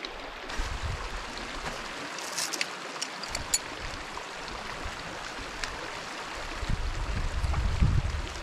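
Creek water running steadily, with a few light clicks between about two and three and a half seconds in. Near the end, wind starts gusting on the microphone.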